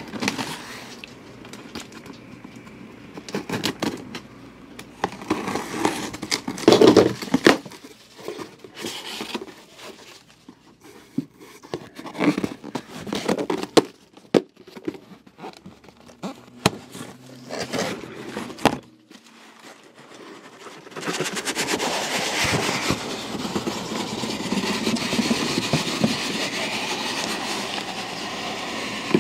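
A heavy corrugated cardboard case being handled and opened: scattered knocks, thumps and cardboard scraping, then, from about two-thirds of the way in, a long steady scratchy rasping of cardboard being worked open.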